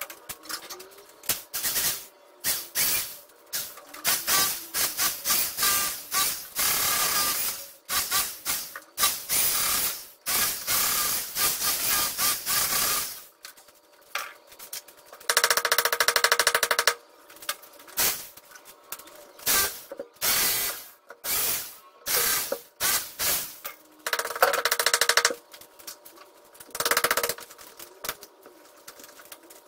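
Handheld electric power tool run in many short bursts, with two longer runs of about a second and a half, one about halfway through and one near the end.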